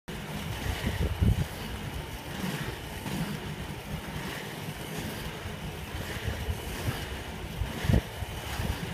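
Wind rushing and buffeting on the microphone as it moves along at skating speed, over a steady low rumble, with heavier low gusts about a second in and near the end.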